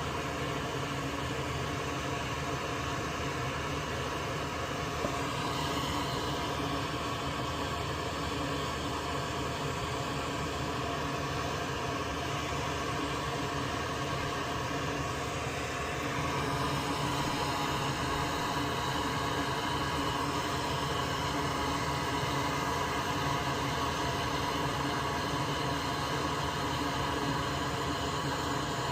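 Steady mechanical hum of a small motor or fan, with several steady tones over a noisy hiss, getting a little louder about halfway through.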